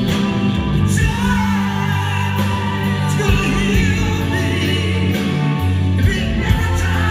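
Live rock band playing a song, with singing over held bass notes and steady drums and cymbals.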